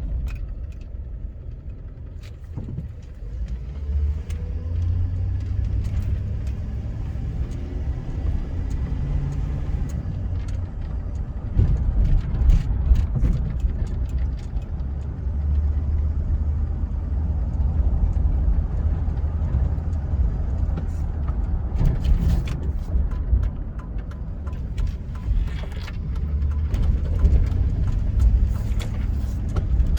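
Cabin sound of a mid-2000s Chevy Silverado pickup on the road: a steady low engine and road rumble, with the pitch rising a few times in the first ten seconds as it accelerates. There are occasional short knocks and rattles over bumps.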